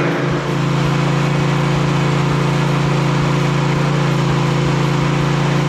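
Husqvarna stand-on lawn mower's engine running at a steady speed while the mower is ridden.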